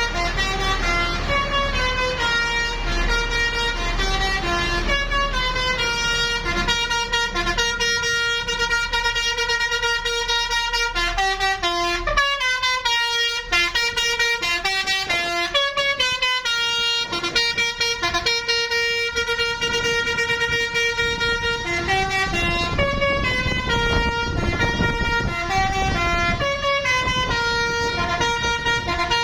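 A bus's 'telolet' multi-tone air horn plays a stepping melody, its notes changing every fraction of a second over a steady held note. A low hum sits underneath for about the first twelve seconds.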